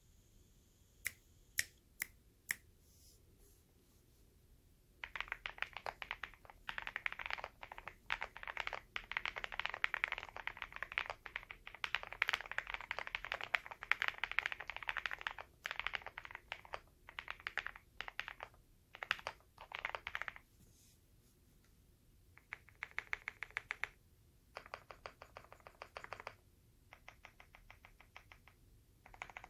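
OwLab Mr.Suit custom mechanical keyboard with lubed, filmed CrInk frankenswitches (NK Cream stems in Gateron Black Ink V2 housings) on a POM plate with MT3 keycaps, being typed on. A few single keystrokes come near the start, then a long run of fast, continuous typing, a short pause, and several shorter bursts of typing.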